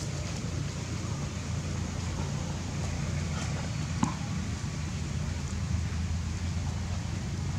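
Steady low background rumble, with one sharp click about four seconds in.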